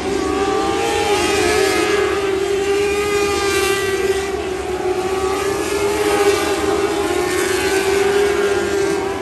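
Lightning sprint car's engine held at high revs as the car laps the dirt oval: a loud, steady high-pitched drone that wavers only slightly in pitch.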